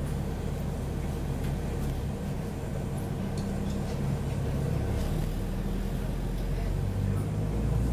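Dennis Trident double-decker bus's diesel engine running with a low drone, heard inside the upper deck along with cabin rattle and hiss; the drone's pitch shifts around two seconds in and again around five seconds in, and it grows slightly louder towards the end.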